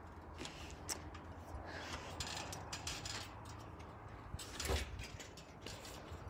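Faint rustling and handling noise from a phone being moved around, with a few soft clicks and a duller thump a little past halfway.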